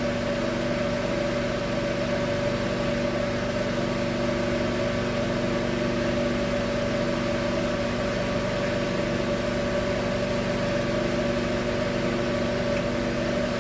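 Microwave oven running: a steady hum with several fixed tones that holds unchanged throughout.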